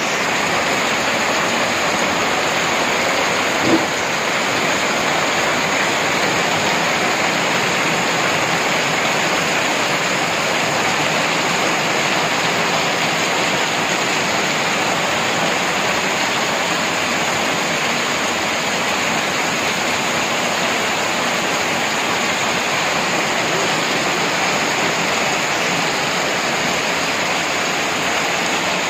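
Heavy rain falling steadily, with one short knock about four seconds in.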